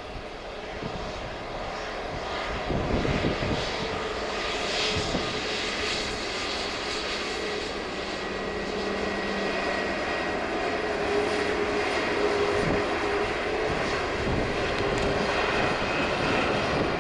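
Jet engines of a Frontier Airbus A320-family airliner running as it moves along the airfield: a steady rush with a held hum and a faint whine, growing gradually louder.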